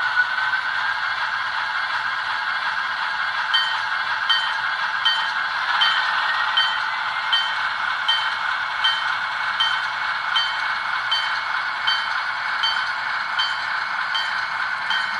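Bachmann model diesel switcher running along the track pulling a cut of cars: a steady whine from its electric motor and gears, with a light click repeating a little faster than once a second from about three and a half seconds in.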